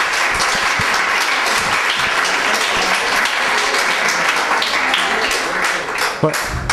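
Audience clapping steadily, dying away near the end as a man's voice begins.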